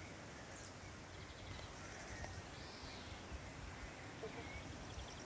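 Faint, scattered bird calls, a few short chirps here and there, over a quiet, steady outdoor background hush.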